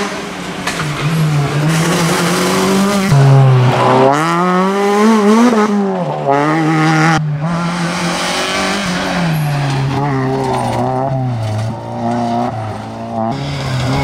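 Peugeot 206 rally car engine revving hard on a stage, its pitch climbing and falling again and again, with sudden drops in revs about three seconds in and near the end.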